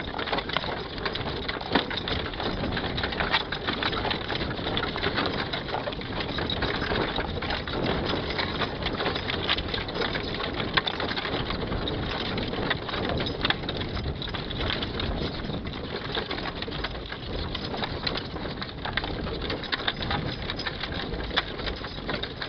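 A horse-drawn wagon climbing a gravel road: a steady crunching, rattling clatter of wheels and hooves on gravel, full of small sharp clicks.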